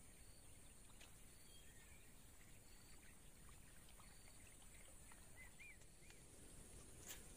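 Near silence: faint outdoor ambience with a steady high insect drone and a few soft bird chirps, and a light click just before the end.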